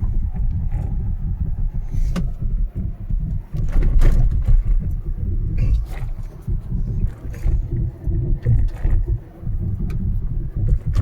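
A Tata electric car driving, heard as a dense, uneven low rumble of road and wind noise, with a few brief knocks along the way.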